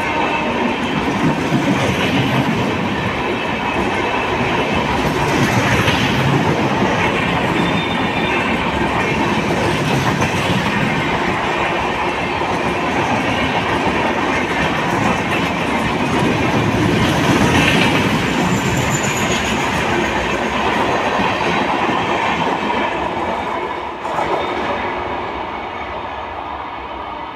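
Express train of red LHB passenger coaches running through at speed: steady wheel-and-rail rolling noise with clattering over the track, swelling a few times as coaches pass, and quieter in the last few seconds.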